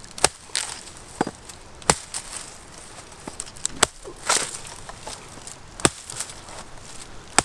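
Knife chopping into the fibrous husk of a young green coconut, a handful of sharp chops a second or two apart, cutting the top off at an angle to open it.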